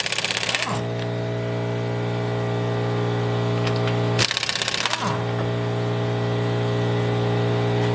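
Impact wrench hammering in two short bursts, one at the start and one about four seconds in, each under a second long. A steady droning hum runs underneath.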